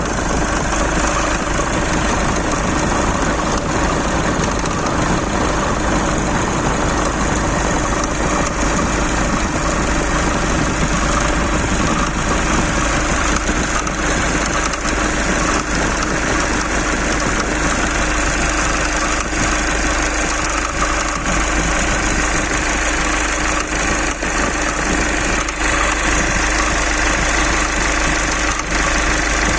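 Mitsubishi 4D56 2.5-litre four-cylinder diesel engine idling steadily with a knock in it.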